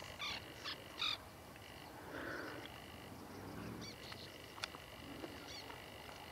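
Faint frog croaking: a few short calls in the first second, then softer ones, with a thin high-pitched tone coming and going.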